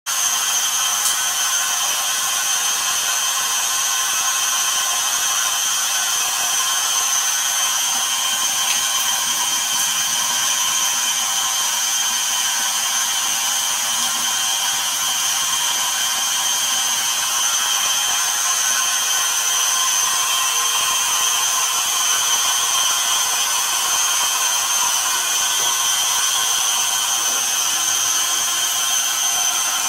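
Steady whirring noise with a thin high whine, unchanging throughout: a small motor or fan running.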